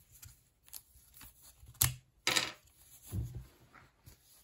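Handling noise from a plastic fashion doll and its fabric dress: small plastic clicks and knocks with brief fabric rustles, including a sharp click about two seconds in followed by a short rustle.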